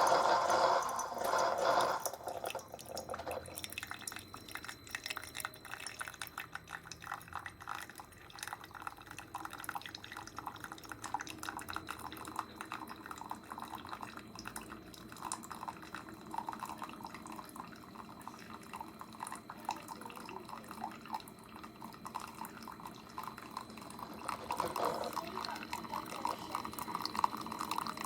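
Single-serve coffee maker brewing: coffee spurts and drips into a mug with a dense, crackling patter of small splashes. It is loudest in the first couple of seconds and swells again near the end. The spray splatters onto the bottom and walls of the brewer, which the owner takes for a design flaw with no guide to stop the splatter.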